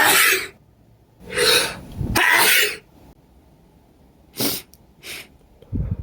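A man with a congested head cold sneezing twice, set off by sniffed pepper. The first sneeze bursts out right at the start; about a second and a half in he draws a sharp breath and lets go of a second loud sneeze. Two short sniffs and a brief low puff of breath follow.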